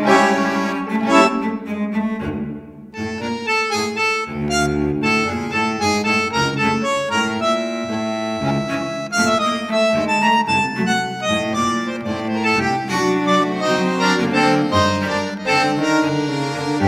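Instrumental background music: a melody of changing notes over a steady low drone and moving bass notes, dipping briefly about two and a half seconds in.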